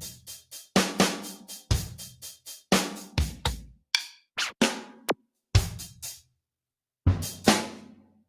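Drum kit sound from a KORG Pa700 arranger keyboard, played as separate kick, snare, hi-hat and cymbal hits in short figures, with a brief break a little after six seconds in.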